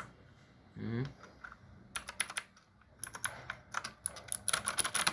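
Typing on a Royal Kludge RK61 mechanical keyboard: scattered key clicks at first, then a fast run of keystrokes near the end. A brief voice sound comes about a second in.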